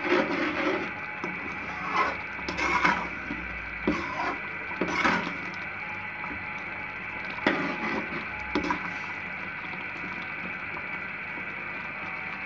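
Metal spoon stirring thick chicken gravy, just thickened with cornflour, in a steel pan. It scrapes and knocks against the pan every second or two.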